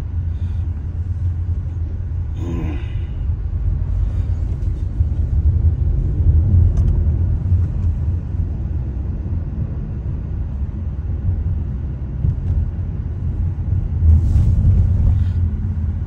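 Steady low rumble of a car driving along a road, the engine and road noise heard from inside the cabin.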